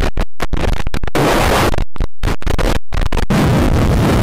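Loud, harsh digital noise from heavily distorted, effect-processed audio. It cuts out and back in abruptly about a dozen times over the first three seconds, then runs steadily.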